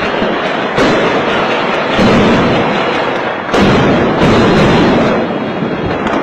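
Dense fireworks barrage: a continuous crackle and rumble of many bursts at once, with heavier booms breaking in about a second in, at two seconds, and twice more around three and a half to four and a half seconds.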